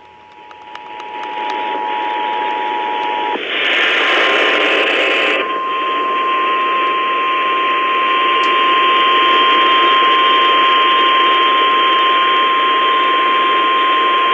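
Emergency Alert System attention signal received over a hissing radio: the two-tone alert fades up from silence and sounds for about three seconds. A two-second burst of louder static follows, then the single steady NOAA Weather Radio warning tone holds to the end.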